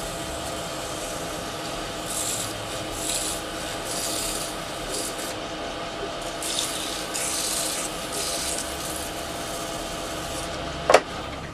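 Fine 1500-grit sandpaper rubbing on a maple ring blank that spins on a wood lathe: a hissing rub that comes and goes in repeated passes over the steady hum of the lathe. One sharp click near the end.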